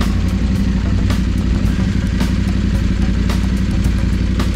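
Adventure motorcycle engine running steadily at low revs on a slow rocky trail, with sharp knocks and clatter about once a second as the bike goes over the stony ground.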